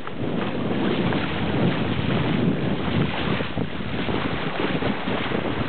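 Wind buffeting the microphone over water rushing and splashing along a sailboat's hull as it sails.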